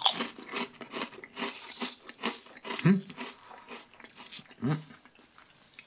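Lorenz Crunchips potato chips, ridged on one side and flat on the other, being bitten and chewed: a sharp crunch right at the start, then a quick run of crisp crunches that thins out over the seconds. Two short low hums come from the mouth along the way.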